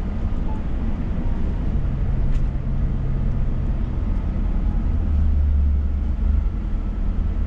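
Scania S500 truck's six-cylinder diesel engine and tyres droning steadily inside the cab while driving. A low hum comes in about two seconds in, and the engine note deepens and grows louder about five seconds in.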